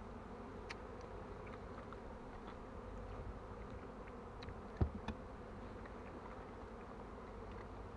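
Honeybees flying around hives and out over a flowering field-bean crop, a steady low hum of many bees at work during a nectar flow. One short louder sound comes about five seconds in.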